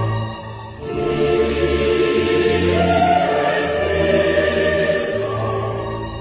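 Background choral music: a choir singing long held notes, briefly fading just under a second in before coming back in.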